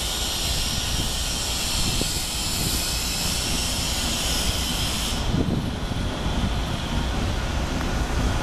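Steady rumble of an approaching R68 subway train on an elevated line, with a high hiss over it that cuts off suddenly about five seconds in.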